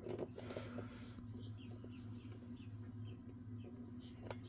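Faint metallic clicks and small scraping squeaks of a lock pick working the pins of a pin-tumbler challenge lock under tension, with a cluster of clicks at the start and one sharp click near the end, over a steady low hum.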